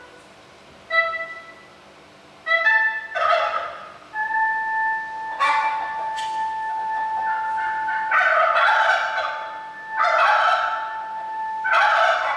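Electronic sound-art music: a few short pitched notes, then a single steady tone held for about seven seconds, broken by repeated bursts of hiss-like noise.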